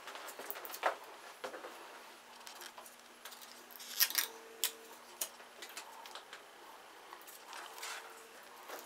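Scattered light clicks and taps, with a cluster of sharper clicks about four seconds in.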